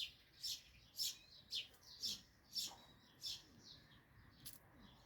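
Small birds chirping: short, high-pitched chirps repeated about twice a second, becoming sparser near the end.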